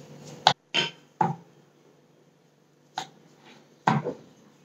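Wooden rolling pin and round wooden rolling board knocking as a half-cooked wheat-flour koki is rolled out again: a handful of sharp, irregularly spaced knocks.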